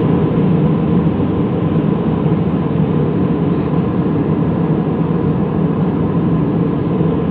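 Steady, loud airliner cabin noise: the drone of the jet engines and rushing air, with a faint steady whine above it.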